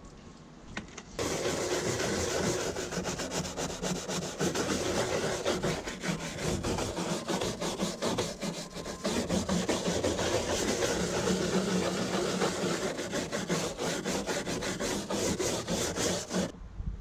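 Scrubbing a mold-stained boat seat with a cleaning product: rapid back-and-forth rubbing strokes that start suddenly about a second in and stop suddenly just before the end.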